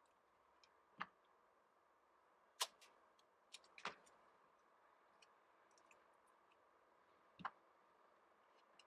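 Faint, sparse clicks and taps of cardboard pieces and brown packing tape being handled on a wooden board, about half a dozen in all, the sharpest about two and a half seconds in.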